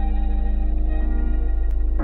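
Background music of steady held chords over a deep sustained bass note.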